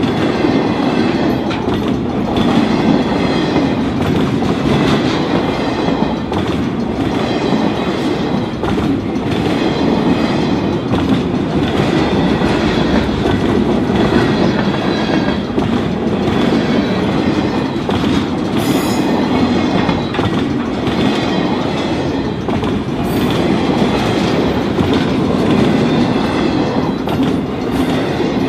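Freight train cars rolling past close by: a steady rumble with wheels clacking over the rail joints, and a brief high squeal about two-thirds of the way through.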